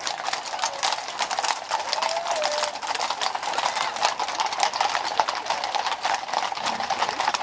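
Hooves of a column of cavalry horses walking on a paved street: a dense, irregular clip-clop of many overlapping hoofbeats.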